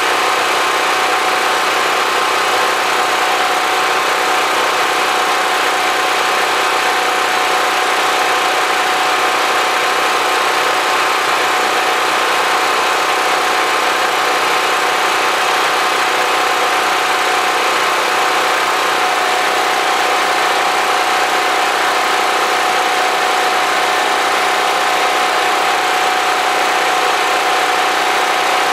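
Portable generator running steadily and loudly, a constant engine drone with a steady hum and no change in speed.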